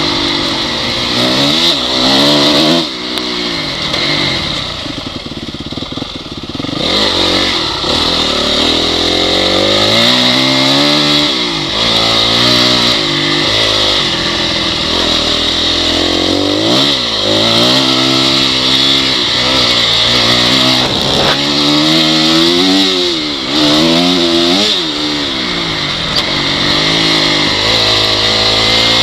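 Honda CRF dirt bike's single-cylinder four-stroke engine being ridden hard, its pitch rising and falling over and over as the throttle opens and closes, with a steady hiss of wind. It eases off and drops quieter for a few seconds near the start.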